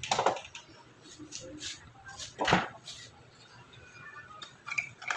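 Light taps and knocks from handling the small LED board and test leads on a work surface, a few scattered strokes with the loudest about halfway through.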